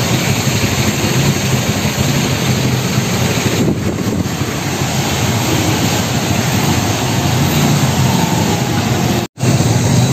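Motorcycle engine of a passenger tricycle running steadily while riding, under a constant rush of road and wind noise. The sound cuts out abruptly for a moment near the end.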